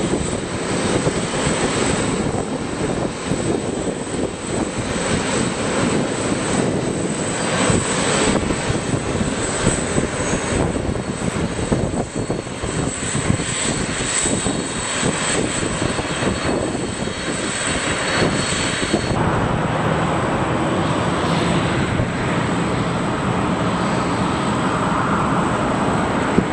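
Boeing 747-400D's jet engines running at taxi power: a steady rushing hum with a faint high whine. About 19 seconds in, the sound changes abruptly to a more distant engine noise without the whine.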